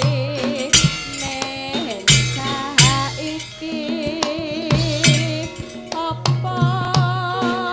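Live Javanese gamelan music: kendang barrel drums struck in quick, sharp strokes, with a woman's wavering singing voice over the ensemble.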